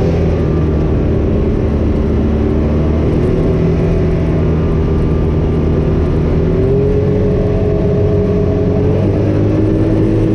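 A car's engine running with tyre and road noise, heard from inside the cabin while driving. The engine note is steady and rises a little a couple of times in the second half.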